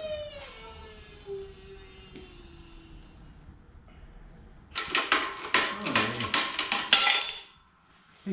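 A tone that slides down in pitch and fades over about three seconds. From about five seconds in, a quick run of metal-on-metal clanks and rattles from steel transmission parts being handled, ending in a short ringing clink.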